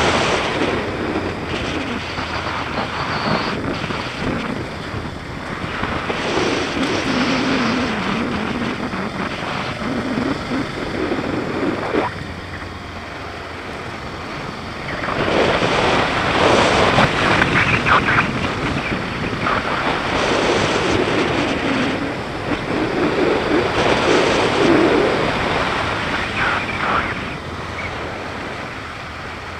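BMW G650GS single-cylinder engine running under way, its pitch rising and falling with the throttle, under heavy wind noise on the microphone. It is loudest in two stretches past the middle.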